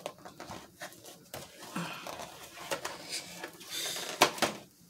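Food containers and plates being handled during serving: scattered small clicks, taps and rustles, with one sharper knock near the end.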